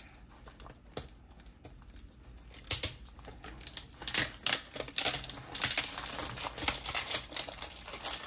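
Irregular light clicks and taps of plastic petri dishes and their lids being handled on a bench, sparse at first and busier from about three seconds in.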